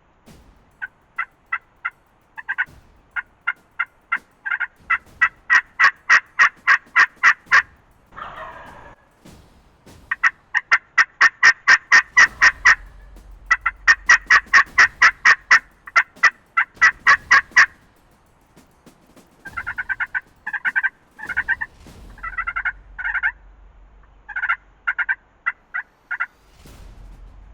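Turkey yelping: three long runs of quick, evenly spaced notes, about four a second, growing louder through each run, followed by a looser run of short, choppy notes near the end.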